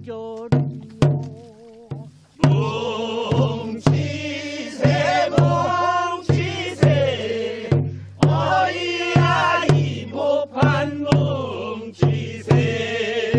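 Korean folk work song sung by a group pulling rice seedlings in a paddy: a lead voice with wide vibrato, then the chorus joining in about two seconds in. A drum keeps a steady beat about twice a second.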